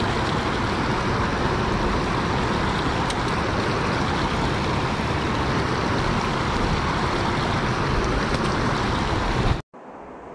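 Steady rush of shallow river water flowing over a concrete ledge. It cuts off suddenly near the end.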